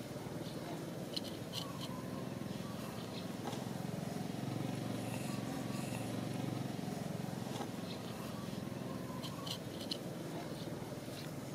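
Steady low outdoor background rumble, a little louder in the middle, with a few faint, short high-pitched clicks.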